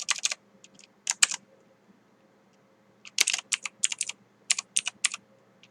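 Typing on a computer keyboard: a few keystrokes in the first second or so, a pause, then a quick run of keystrokes from about three seconds in to past five seconds.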